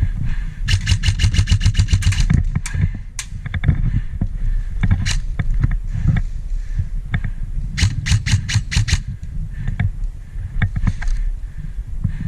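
Airsoft electric gun firing on full auto: a burst of rapid shots at about ten a second lasting a second and a half, a few single shots, then a shorter burst near the end, over low rumble from movement and wind.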